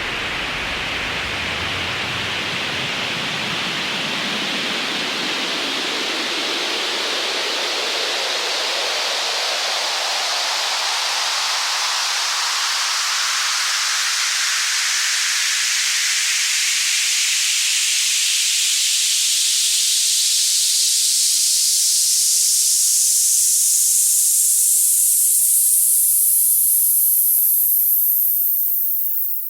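Synthesized white noise riser: a band of hiss that sweeps steadily upward in pitch over about half a minute, slowly growing louder and fading out right at the end.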